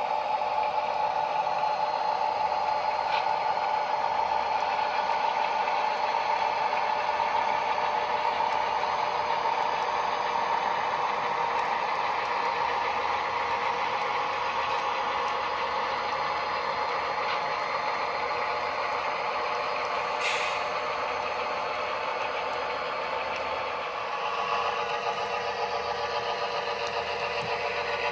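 Model freight train rolling past on the layout: a steady clatter of the cars' wheels on the rails, with little low rumble. About 24 seconds in, a second model diesel's engine sound comes up as the helper locomotive approaches.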